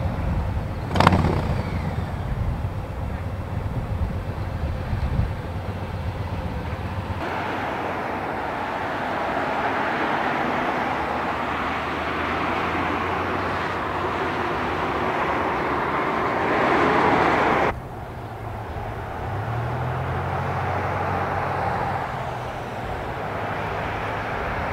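Road traffic: vehicles driving past with engine and tyre noise, and a sharp click about a second in. The sound changes abruptly twice, first to a steadier hiss of traffic and then, two-thirds of the way through, to a lower engine rumble.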